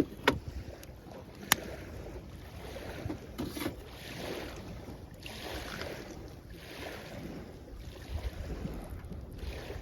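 Small waves washing in at the shoreline with a wood campfire crackling; two sharp pops from the fire in the first two seconds.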